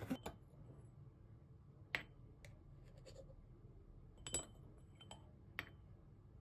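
A metal spoon clinking against a glass jar and the metal funnel basket of a moka pot while ground coffee is scooped in: about five light clinks, the loudest about four and a half seconds in.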